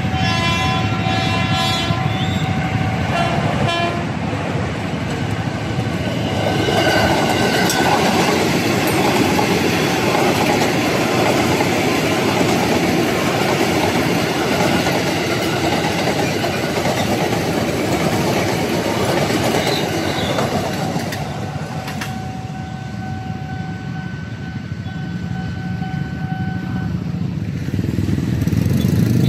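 A train horn sounds in a held chord for the first few seconds, then an electric commuter train passes close by at a level crossing: its wheels rumble and rattle over the rails, building about seven seconds in and easing off after about twenty seconds. A steady single tone follows for several seconds near the end.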